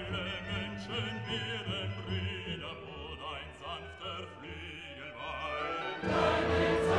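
Background music: a singing voice with vibrato over sustained classical-style accompaniment. About six seconds in, it turns louder and fuller.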